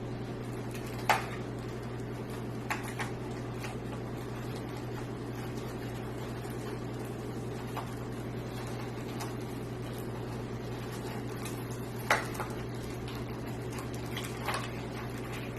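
A few scattered light clicks and knocks of computer case and drive parts being handled, the loudest about a second in and about twelve seconds in, over a steady low hum.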